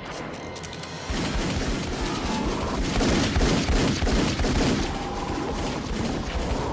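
Heavy, sustained gunfire: a dense volley of rapid shots that grows louder about a second in.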